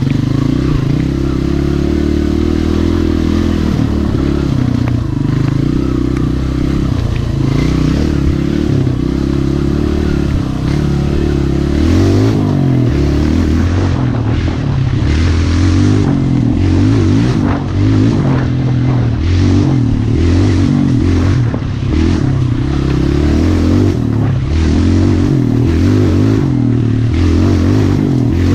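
Yamaha Raptor 125 ATV's single-cylinder four-stroke engine running under way, its revs rising and falling in steps with throttle and gear changes. From about halfway through, frequent knocks and rattles sound as the machine bumps over the rough trail.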